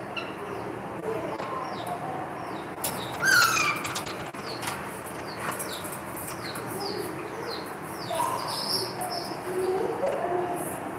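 Birds chirping over and over in short, high, falling chirps, with one louder falling call about three seconds in.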